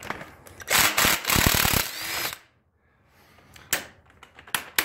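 Cordless power tool on a socket extension running in one burst of about a second and a half, spinning a nut off. A few light clicks follow near the end.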